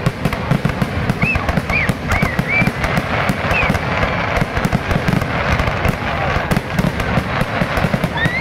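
Fireworks finale: aerial shells bursting in a dense, continuous barrage, the booms overlapping with rapid crackling and no pause between them.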